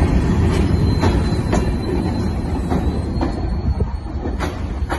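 Freight train's hopper cars rolling past close by: a low rumble with irregular clicks of wheels over rail joints and a faint thin high wheel squeal, easing off as the last car goes by near the end.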